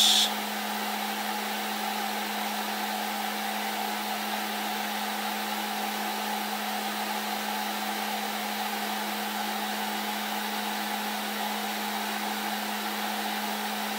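Snapmaker 2.0 3D printer running with its nozzle heated near 200 °C: a steady fan whir with a constant low hum under it.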